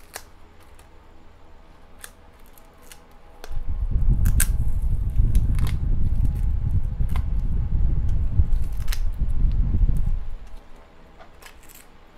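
Cardboard and paper packaging handled with gloved hands: light scattered clicks and rustles. A loud low rumble starts about three and a half seconds in and stops after about seven seconds.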